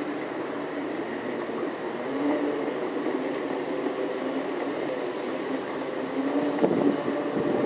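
Segway personal transporter's electric drive whining steadily as it rolls along, its pitch rising and falling slightly as the speed changes. A few short knocks come near the end.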